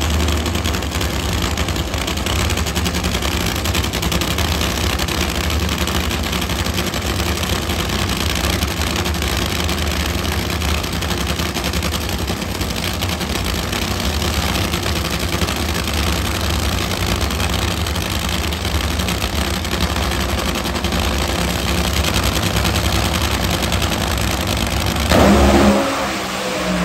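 Two nitro Funny Car engines, supercharged nitromethane-burning V8s, running steadily at idle while the cars are staged. About 25 seconds in, both go to full throttle at the launch: a sudden, much louder blast that then shifts in pitch and begins to fade as the cars run away down the track.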